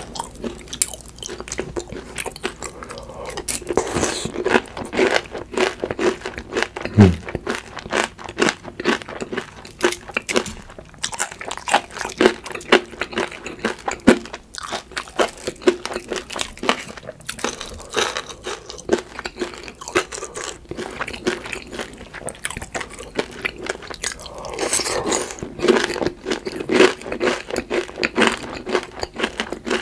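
Close-up crunching and chewing of crispy fried, breaded food, a steady run of sharp crunches bite after bite.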